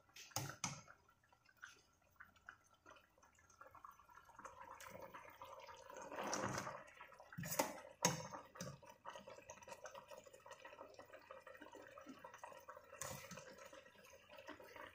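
Sauce simmering and bubbling in a stainless steel pot around a braising whole chicken, with a louder gurgle partway through. A few sharp clicks come near the start and again about halfway.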